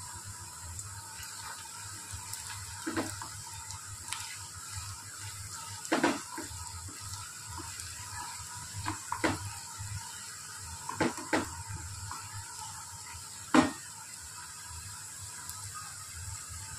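Sliced onions sizzling in hot oil in a metal kadai, stirred with a wooden spoon that knocks and scrapes against the pan about seven times, singly and in pairs; a sharp knock about three-quarters of the way through is the loudest.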